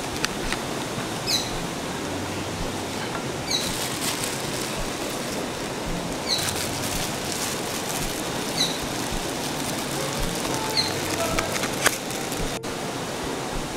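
River water rushing steadily, with a bird giving a short, high, falling chirp five times, about every two seconds, and a few light clicks.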